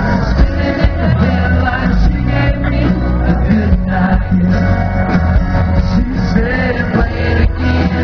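Live country music over a concert PA: a male lead singer with a full band, loud and steady throughout.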